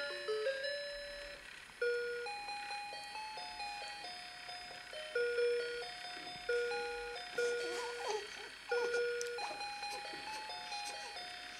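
Simple electronic tune of plain beep-like notes stepping up and down in a steady melody: a bedtime lullaby.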